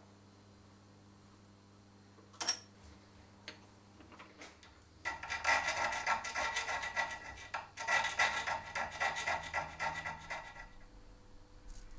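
Small hand file rasping back and forth across a metal rod clamped in a bench vise, in two runs of quick strokes, the second starting just after the first stops. A single sharp click comes earlier, before the filing.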